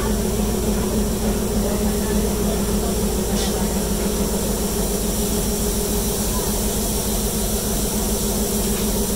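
Sri Lanka Railways Class B1a No. 251 coal-fired steam locomotive heard from inside its cab: a steady hiss of steam over a constant low hum.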